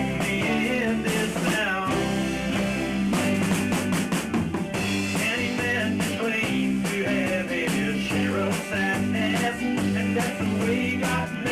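Amateur rock band playing live in rehearsal, an instrumental stretch between vocal lines: drum kit keeping a steady beat under a bass line, with an electric guitar line on top.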